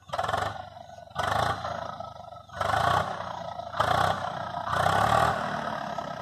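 Tractor engine revving hard in repeated bursts, about five surges roughly a second apart.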